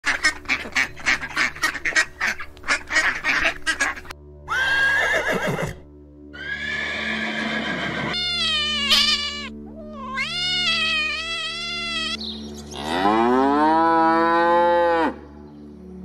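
A run of different farm animal calls, one after another. First comes a quick series of short calls, then several separate pitched cries including cat meows. A long, loud cow moo follows near the end.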